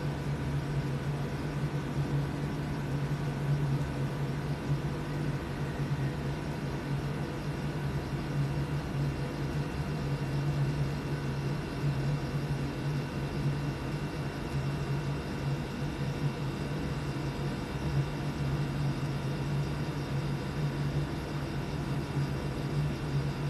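Air conditioner running: a steady low hum with fainter even tones above it.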